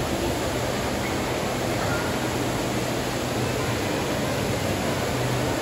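Steady background din of an indoor water park: an even hiss with a constant low hum underneath.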